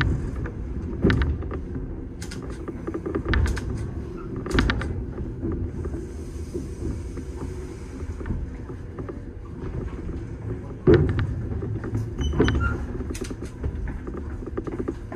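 Electric train moving slowly into a station siding: a low rumble broken by irregular clanks and creaks from the wheels and running gear, with a sharp knock about two-thirds of the way through.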